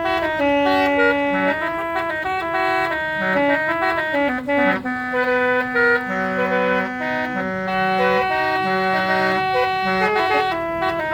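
A musical car horn on a 1957 Chevrolet playing a tune. It sounds as held, reed-like notes that step from one pitch to the next, with a sustained lower part beneath the melody.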